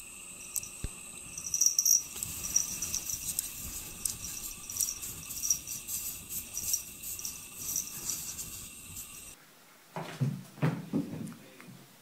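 A cat's claws scratching and scraping at a wall of packed snow, in quick irregular bursts. About nine seconds in this cuts off, and a few soft thumps follow.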